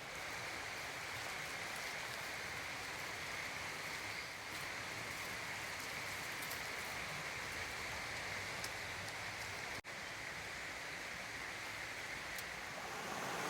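Creek water running, a steady rushing hiss that breaks off for an instant about ten seconds in.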